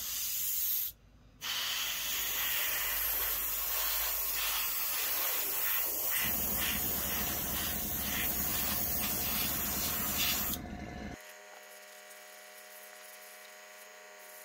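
Airbrush spraying clear matte lacquer: a steady hiss of air and spray, with a short break about a second in, that stops about ten and a half seconds in. After it stops, a steady, quieter electric hum is left.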